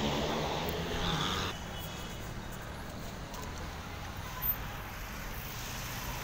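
City street traffic: a motor vehicle's engine and tyres go by during the first second and a half, then a steadier background of traffic, with a short click about four and a half seconds in.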